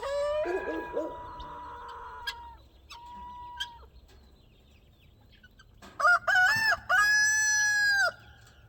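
Roosters crowing among the flock. A long held crow comes first, with a shorter call a few seconds later. About six seconds in a louder crow gives three quick notes and then one long held note.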